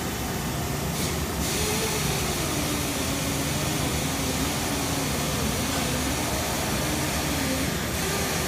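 Steady rush and hum of industrial machinery running, with a faint tone that wavers and drifts slowly in pitch.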